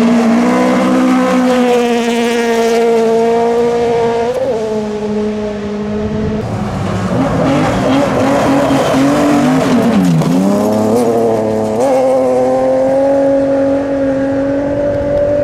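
Rally car engine held at high revs, its pitch steady for several seconds, dipping briefly about four seconds in and dropping more deeply near ten seconds before climbing back up.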